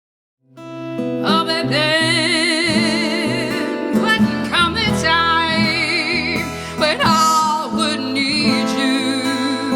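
A woman singing long held notes with a wide vibrato over acoustic guitar. The music starts about half a second in.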